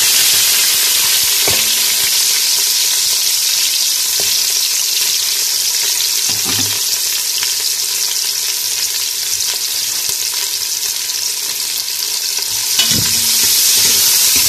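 Sliced onions frying in hot oil in a pressure cooker: a loud, steady sizzle, with a few faint knocks. The sizzle swells near the end as more onion drops into the oil.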